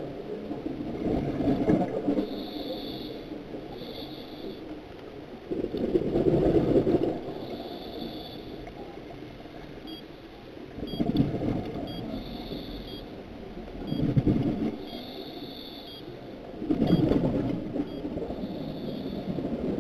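Scuba diver breathing through a regulator underwater: exhaled bubbles rumble out in bursts every three to five seconds, with a thin hiss on each breath in between them.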